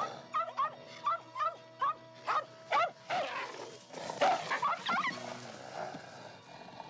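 A dog giving a quick string of short, high yelping barks, about two or three a second, in two runs, over background music.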